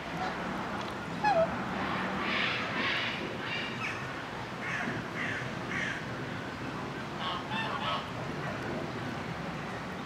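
Waterfowl, geese or swans, giving a series of short honking calls, with a brief louder squeak about a second in.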